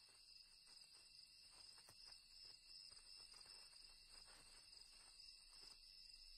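Near silence, with a faint, steady chorus of night insects: several high-pitched trilling tones held without a break.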